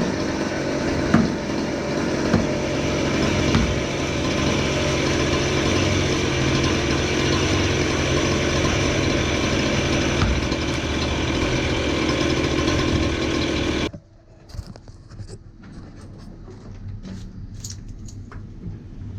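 A gas engine running steadily at a constant speed, which cuts off abruptly about fourteen seconds in. After it, quieter scraping and a few clicks.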